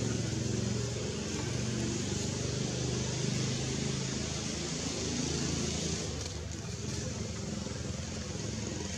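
Steady low hum of a running engine under a broad outdoor hiss, the hum easing a little after about five seconds.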